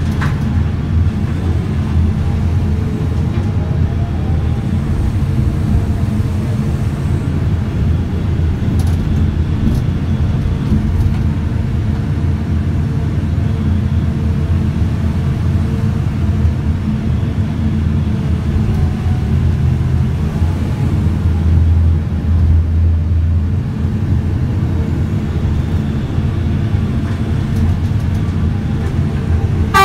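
Terex RH170 front shovel excavator working, heard from inside its operator's cab: a steady, loud, low machine drone that swells briefly a little past two-thirds of the way through.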